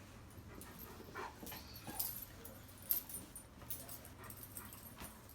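German Shepherd detection dog whimpering softly, with a few short clicks and scuffs, one sharper click about three seconds in.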